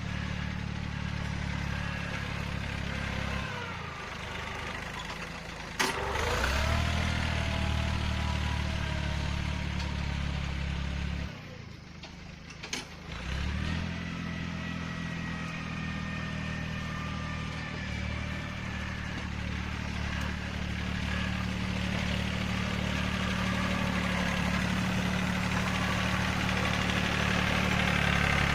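Yanmar 1145 tractor's diesel engine running while pushing dirt with a blade. The engine note drops off twice, around 4 seconds in and again around 12 seconds in, and picks up hard each time, getting louder toward the end. There is a sharp knock at about 6 seconds.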